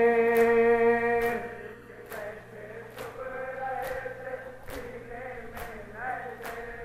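A man singing an Urdu noha (Muharram lament) into a microphone, holding a long note that ends about a second and a half in. A group of male mourners then chants in reply. Sharp chest-beating (matam) strikes land in rhythm, a little more than once a second.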